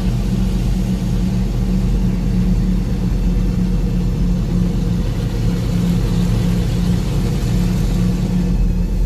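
Lifted Ford truck's engine running steadily at cruising speed, heard from inside the cab as a constant low drone with road noise.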